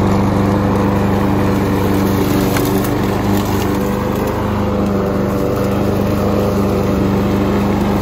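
Gas walk-behind push lawn mower running steadily at full throttle while mowing dry grass and dirt.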